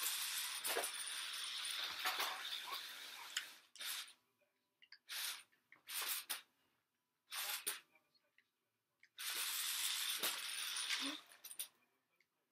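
Small remote-control stunt car's electric motors whirring in bursts as it is driven, spinning and tumbling on a woven rug. A long run at the start, three short blips in the middle, and another long run later, with quiet gaps between.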